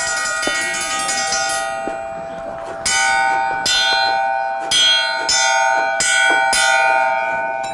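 A metal bell ringing, its earlier tone fading away, then struck about six times in a row from a few seconds in, each stroke ringing on over the last.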